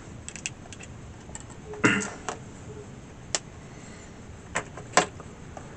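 Small plastic clicks and taps from handling a crimp-pin connector housing. A few light clicks come first, then a sharper one about two seconds in, and more scattered clicks follow, one of the loudest near the end.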